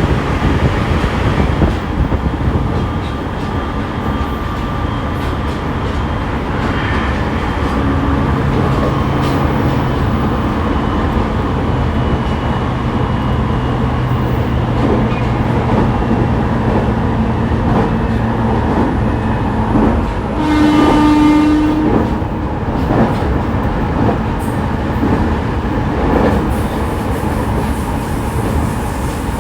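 Inside an E501 series electric train's motor car running on the line: continuous wheel-and-rail noise with a steady hum from the traction motors. About two-thirds of the way through, a single horn blast lasts about a second and a half.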